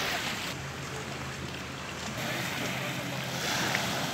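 Outdoor lakeshore ambience: a steady rush of wind and lake water with a faint low hum underneath. The noise changes character abruptly a few times.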